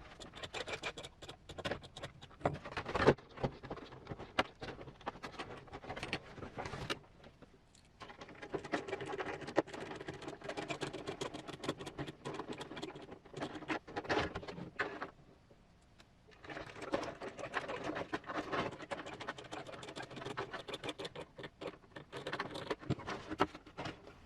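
Hands handling and fitting hard plastic RC body parts: dense, irregular clicking, tapping and rubbing, broken by two short pauses.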